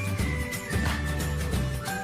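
Intro music with a steady low beat and a sustained melody.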